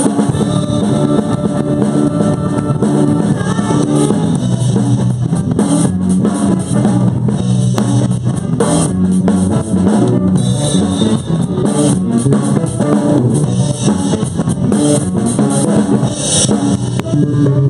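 Live rock band playing with a driving drum kit beat, electric guitar and saxophone.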